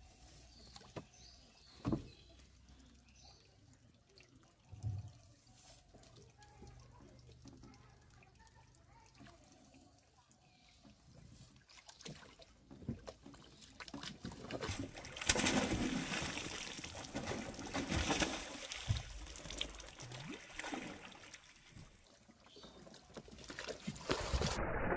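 Water trickling and splashing as a wet cast net is hauled in hand over hand onto a wooden boat. It is quiet in the first half apart from a couple of brief knocks, then the splashing and dripping grow louder from about halfway, and near the end the net with its catch is lifted out of the water with heavier splashing.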